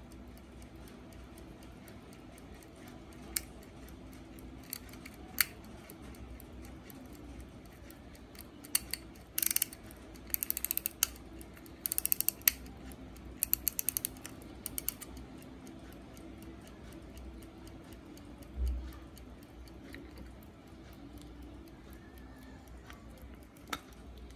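Westclox Scotty pocket watch ticking fast and evenly. In the middle comes a run of louder, sharp clicks as its crown is turned and the hands are moved, with a few single clicks and a dull bump from handling.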